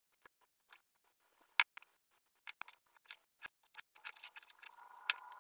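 Kitchen knife cutting an apple into chunks on a plastic cutting board: irregular crisp cuts and clicks of the blade against the board. About four seconds in, a faint steady hum with a few tones comes in underneath.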